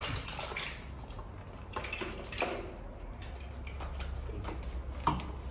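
Clinks and clicks of tableware and a serving spoon in a metal pot of mussels, a few scattered strikes over a steady low hum.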